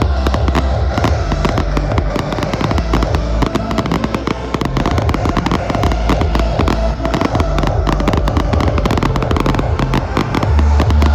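Fireworks display: a dense, continuous run of rapid bangs and crackles from many shells, over a loud deep rumble that eases in the middle and comes back near the end.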